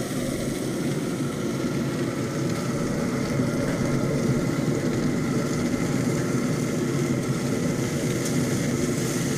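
A pellet smoker grill's draft fan running with a steady hum and a faint whine.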